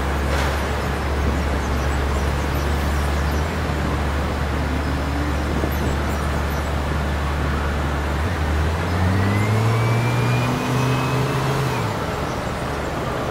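Street traffic: a steady low engine hum, then, from about eight seconds in, a vehicle pulling away, its engine pitch rising along with a faint rising whine for a few seconds.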